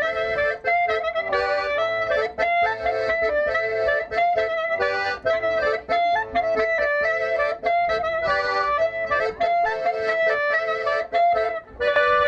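Accordion playing a lively dance tune, a quick run of short notes over held chords.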